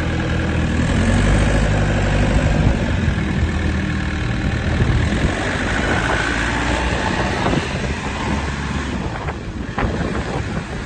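JCB 3CX backhoe loader's diesel engine running steadily, with clatter and scattered knocks from the machine, a few sharper knocks near the end.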